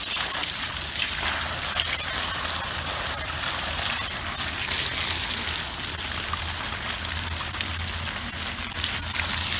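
Water gushing steadily from a garden hose.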